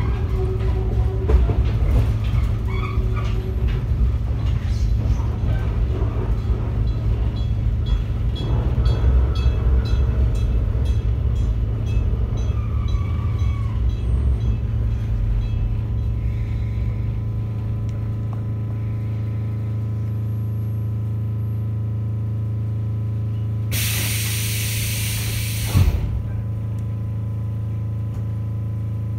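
Electric railcar (ex-JR 119-series MC7001) rolling to a stop, wheels rumbling and clicking on the rails, then standing with a steady electrical hum. About two-thirds of the way through, compressed air hisses loudly for about two seconds and ends in a thump.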